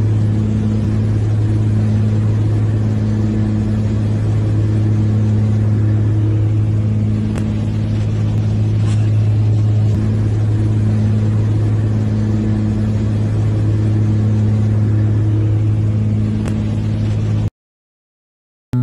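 Light propeller aircraft's piston engine droning steadily, heard inside the cabin, with a slow regular throb in the drone about every two seconds. The drone cuts off suddenly near the end.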